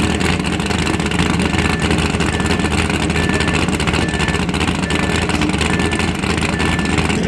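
Rock bouncer race buggy engine running steadily and loudly.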